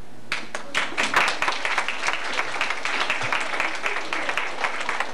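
Audience applause: many hands clapping, breaking out about a third of a second in.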